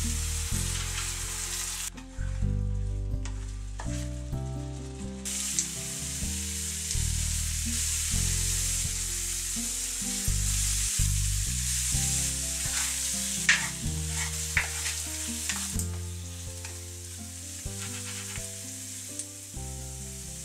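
Sliced porcini mushrooms sizzling in butter in a frying pan as cream is poured in and stirred. The sizzling drops away for a few seconds about two seconds in, and there are a few sharp clicks around the middle. Background music runs throughout.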